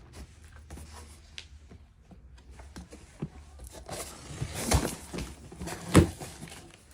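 Cardboard box and packaging being handled and opened: light scattered clicks and rustling that grow into a louder rustle and tearing about four seconds in, with two sharp knocks near the end.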